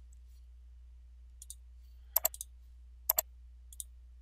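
Computer mouse clicking: a faint click or two, and two loud quick double clicks about a second apart, over a faint steady low hum.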